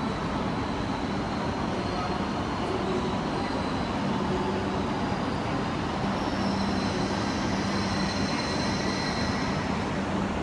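Shinkansen train moving along the platform: a steady rumble with a low hum, and a high whine that strengthens from about six seconds in.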